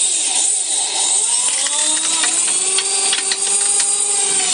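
Handheld electric drill running continuously, its whine rising over the first couple of seconds and then holding steady.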